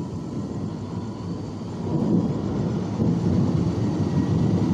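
Thunder rumbling in a rainstorm: a low, rolling rumble that swells louder about two seconds in.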